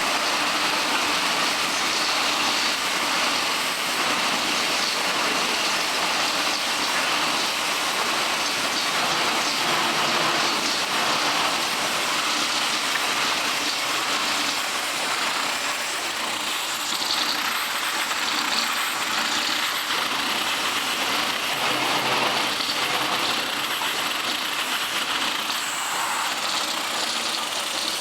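Fully automatic bottle-cap printing machine running, a steady, continuous mechanical clatter with a hissing edge.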